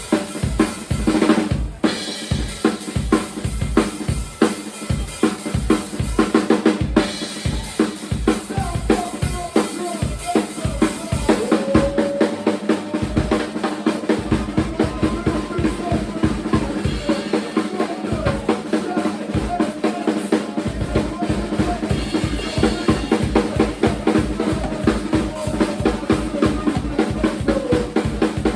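Live band playing, led by a drum kit keeping a busy steady beat of kick drum and snare, over a held bass and a wavering higher melody. The kick drops out for a couple of seconds twice in the middle, then comes back in.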